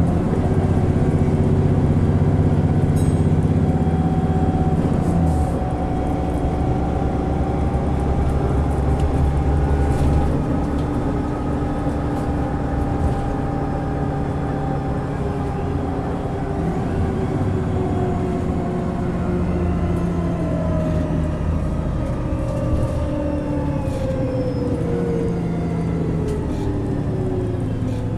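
VDL DB300 double-deck bus's diesel engine and Voith four-speed automatic gearbox heard from inside the cabin, the bus running in limp mode while driven hard. The engine note drops as it changes up at about five and again about ten seconds in, and near the end a whine falls away in pitch as the bus slows.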